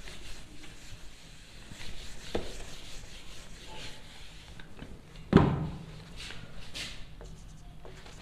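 Whiteboard duster rubbing back and forth across a whiteboard, erasing it. About five seconds in comes a single loud thump, and near the end a marker starts writing on the board.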